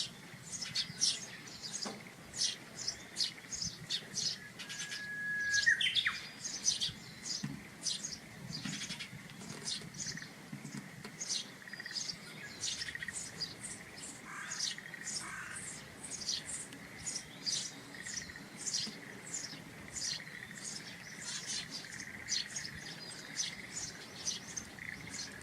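Birds twittering: a continuous stream of short, high, downward-sweeping chirps, several a second. About five seconds in, a steady whistle-like tone holds for a second and then sweeps sharply upward; this is the loudest moment.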